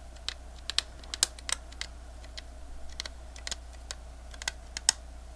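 Light, irregular clicks and taps, about twenty in a few seconds, over a faint steady low hum.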